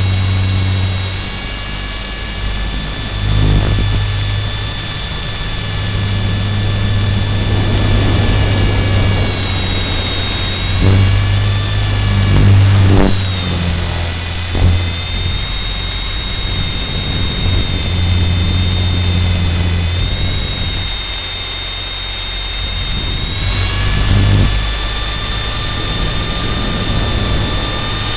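Align T-Rex 450 SE V2 electric RC helicopter running in flight, picked up by a camera mounted on its landing skid: a loud high-pitched whine from the motor and gears over a low rotor drone. The whine dips in pitch a few times as the load on the rotor changes.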